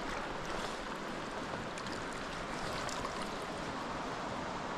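Steady rushing of a mountain stream's water flowing over rocks.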